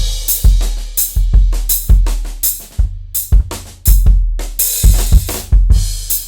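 Acoustic drum kit played in a steady groove: deep, ringing bass drum kicks, sharp snare hits and washing cymbals and hi-hat.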